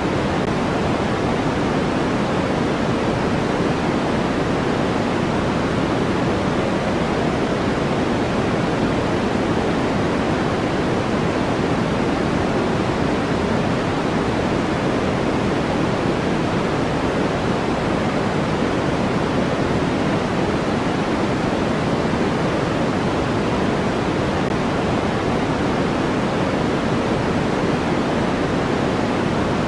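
Steady, unchanging noise played as a sleep sound: an even hiss with most of its weight in the lower-middle range and softer highs, closer to pink noise than to flat white noise.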